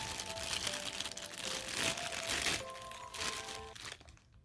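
Packaging crinkling and rustling as hands dig through a package, under soft background music; the crinkling dies away near the end.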